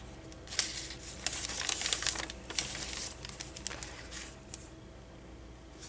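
Paper rustling and crinkling as the pages and tucked-in cards of a handmade paper journal are handled and turned, in a quick run of short scratchy strokes that die down after about four and a half seconds.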